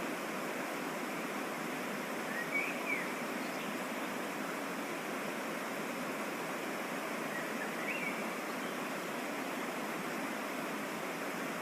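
Steady rush of water pouring down a small mountain waterfall into its stream, an even, unbroken noise.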